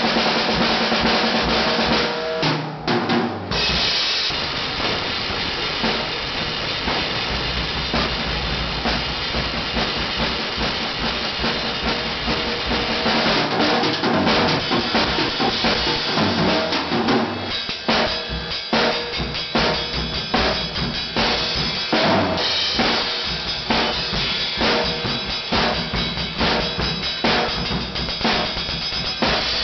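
Acoustic drum kit played freely with wooden sticks: snare, toms and cymbals in a loud, busy improvised pattern. A brief break comes about three seconds in, and the second half has more separate, evenly spaced hits.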